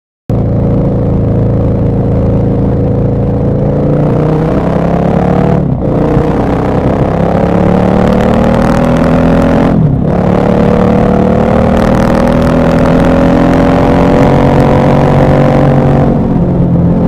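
KTM 1190 Adventure R's LC8 V-twin engine accelerating under load. Its pitch climbs, drops sharply at upshifts about six and ten seconds in, then climbs slowly and holds, with a brief dip near the end. The engine cuts in suddenly just after the start.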